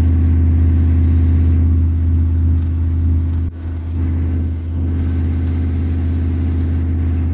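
Dodge truck's engine running under way, heard from inside the cab as a steady low drone. The level dips briefly about three and a half seconds in.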